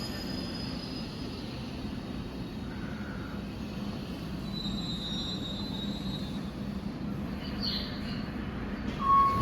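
Commuter train running through the station, a steady low rumble with faint high wheel squeal around the middle. A short steady tone begins near the end.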